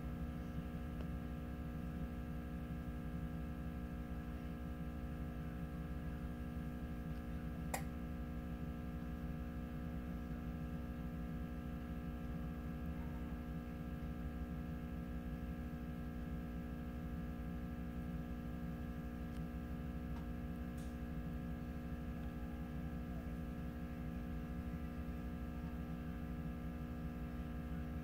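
Hot-air rework tool blowing steadily during solder reflow: an even hum with several steady tones. One sharp click about eight seconds in.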